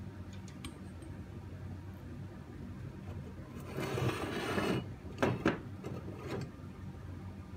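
Small metal tools being handled on a workbench: a helping-hands clamp's arms and clips being repositioned. A scraping shuffle comes about halfway through, followed by a few sharp clicks.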